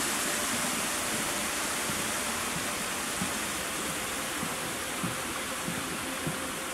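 Steady rush of water cascading down a tiered rockwork waterfall, slowly fading. A few soft taps come through now and then.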